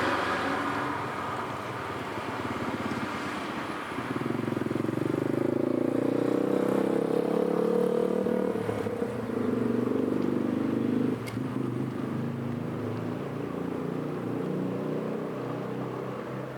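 An engine running with a steady low drone, growing louder about four seconds in and dropping off abruptly about eleven seconds in.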